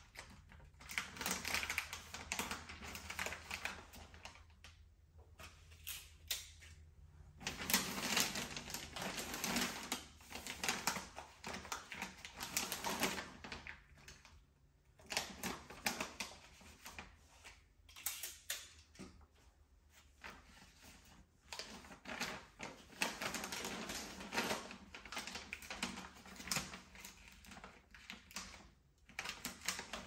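Gift-wrapping paper being handled, crinkling and rustling with quick crisp clicks and taps. It comes in several stretches of a few seconds, with short quiet pauses between.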